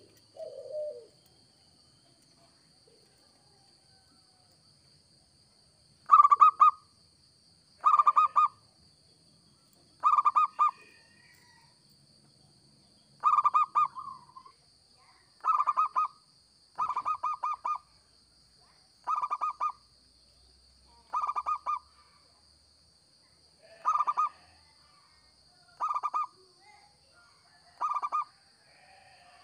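Zebra dove (perkutut) calling: short, fast-pulsed coos repeated about every two seconds, starting some six seconds in after a brief quieter spell.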